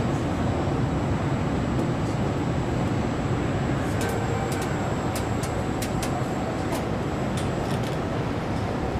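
Steady machinery noise of a car assembly hall, with a faint high whine. A quick run of sharp clicks comes about halfway through.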